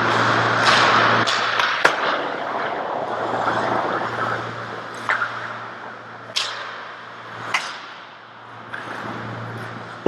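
Ice hockey play: skate blades scraping and hissing on the ice, with about half a dozen sharp clacks of sticks and puck spread through. A steady low hum runs underneath.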